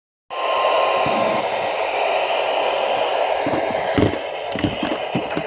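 Weather radio receiver hiss: a loud, steady band of static from a weak broadcast signal. A faint steady tone runs under it for about the first second, and scattered crackles and pops come in the second half.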